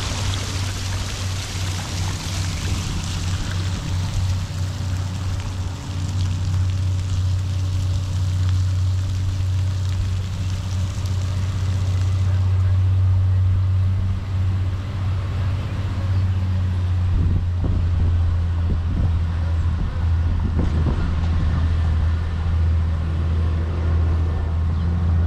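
Water splashing down the steps of a stepped fountain, fading out after a few seconds, over a steady low rumble.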